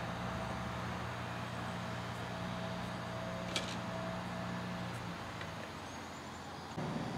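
Steady low engine hum over outdoor background noise, with a single sharp click of a putter striking a golf ball about three and a half seconds in. The hum stops about five seconds in, and the background changes abruptly near the end.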